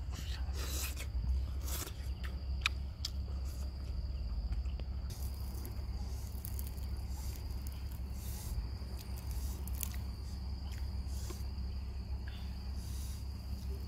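Insects trilling steadily at one high pitch, over a low steady rumble, with scattered light clicks and scrapes from a fork and fingers picking apart a salt-crusted grilled fish on a plate.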